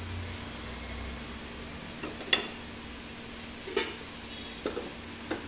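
Steel cookware clinking and knocking: a sieve on a pot and a pressure cooker being handled on a gas stove. There are four sharp knocks, the loudest about two seconds in, over a steady low hum.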